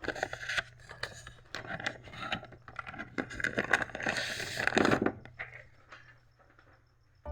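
HP LaserJet M1005 laser printer running a test print after a new pickup assembly: a rapid run of clicks and scraping as the paper is picked and fed through, lasting about five seconds and dying away near the end.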